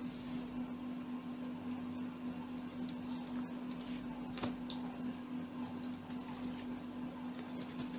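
Tarot cards being handled in the hand: soft rustling with a sharp card click about halfway through, over a steady low hum.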